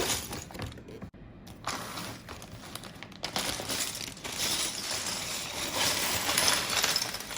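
Loose plastic LEGO bricks clinking and clattering together, with a rustling, crinkling sound of the pieces being sorted through, busier in the second half.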